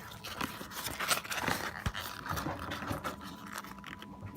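Crisp crackling and rustling of a cabbage leaf being handled and pierced with the tip of a knife, in irregular small snaps.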